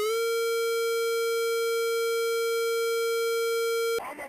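Synthesized warning-siren tone that finishes winding up and then holds one steady, buzzy pitch, cutting off abruptly about four seconds in.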